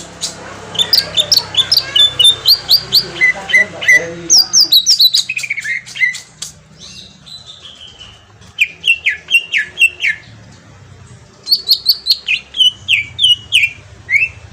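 Cucak ijo (leafbird) singing: fast runs of sharp chirps and short falling whistles, in three loud bursts separated by brief pauses.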